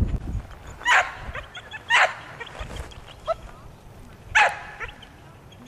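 A dog barking: three loud, sharp barks, the first two about a second apart and the third a couple of seconds later, with a fainter yip or two between.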